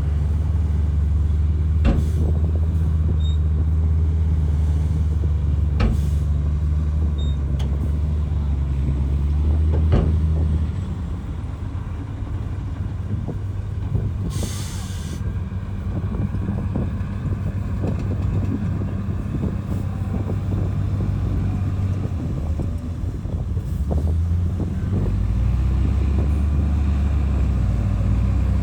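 Heavy diesel earthmoving machinery running under load. The engine drone eases about ten seconds in and picks up again near the end. Sharp metallic knocks come three times early on, and a short burst of hissing air comes about halfway through.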